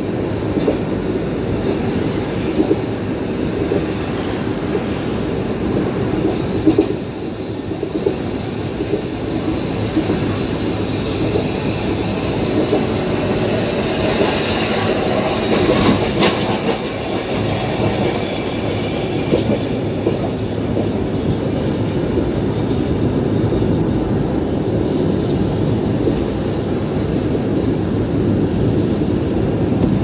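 Streetcar running along its rails, a steady rumble of wheels on track mixed with road noise. Around the middle it grows louder and brighter as the tram passes close by.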